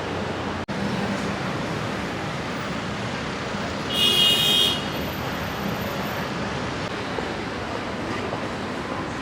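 Steady city street traffic noise, with a short vehicle horn toot about four seconds in.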